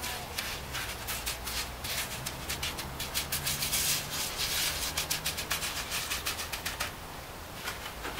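Gloved hand patting and smearing wet pumice-concrete render onto a concrete pizza-oven dome: a quick run of soft slaps and scrapes, several a second, busiest around the middle.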